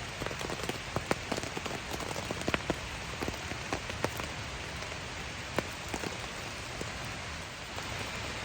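Steady rain from a thunderstorm, with single drops tapping sharply at irregular moments over the hiss.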